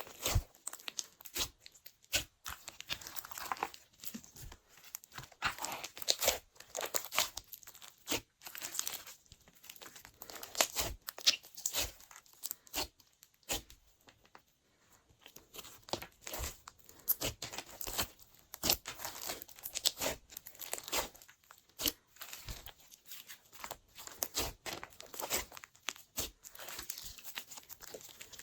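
Hands squishing, stretching and folding glossy slime, making a dense run of irregular sticky clicks, pops and crackles.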